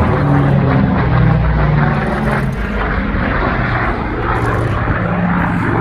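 Engine drone of an aerobatic display airplane flying overhead, steady and loud, its pitch wavering a little as it manoeuvres.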